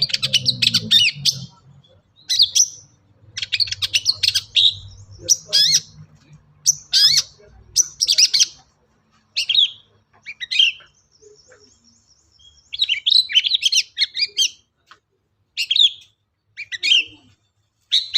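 Long-tailed shrike (cendet) singing in a run of short, separate bursts of quick high chirps and twitters, strung together from mimicked calls of other birds, with a brief fast, even trill a little past the middle.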